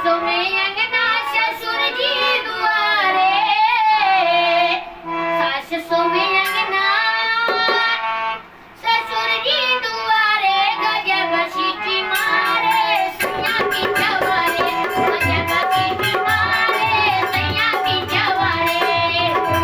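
A boy singing a Bhojpuri folk song over a harmonium, pausing briefly twice. About two-thirds of the way through, a dholak drum comes in with a steady beat.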